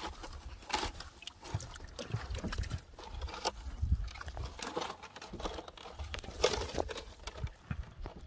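Irregular rustling, crinkling and knocking as a nylon fishing net holding freshly caught tilapia is handled, over a low rumble on the microphone.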